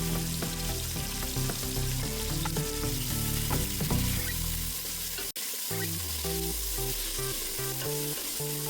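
Whole spices (cumin seeds, cloves, cinnamon stick) sizzling in hot oil in a cooking pot while being stirred, with a brief drop-out about five seconds in.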